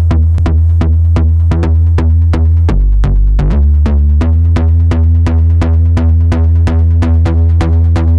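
Electronic dance music with a fast steady beat, about four strokes a second, over heavy bass; the bass line shifts briefly about three seconds in.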